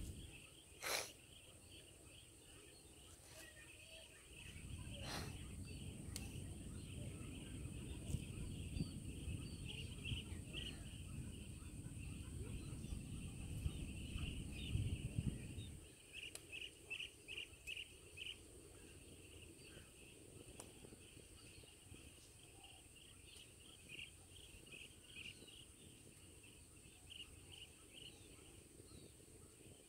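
Outdoor dawn ambience of insects and birds: a steady high insect drone throughout, with runs of short chirps, one clear run of about five about sixteen seconds in. A low rumble comes in about four seconds in and stops sharply about sixteen seconds in.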